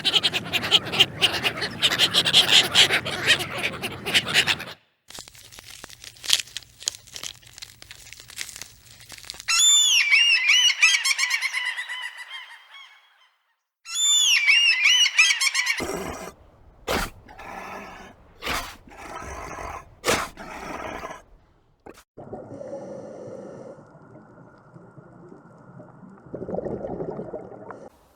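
A succession of different animal sounds, among them runs of repeated high-pitched bird calls.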